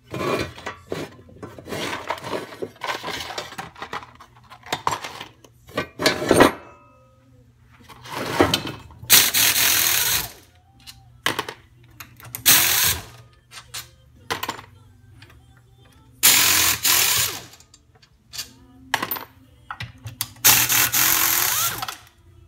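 Pneumatic wrench with a socket extension running in repeated short bursts, each a fraction of a second to about two seconds long, with air hiss, as it backs bolts out of a Tecumseh snow blower engine's casing.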